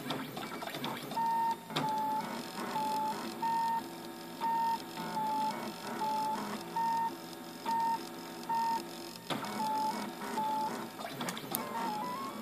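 RepRap 3D printer's stepper motors singing a short pitched tone that repeats about every 0.7 s as the print head moves back and forth over the infill. A few sharp clicks fall among the tones. Near the end the tone steps up and down in pitch. The clicks are the unexplained click the owner hears once the infill layers begin.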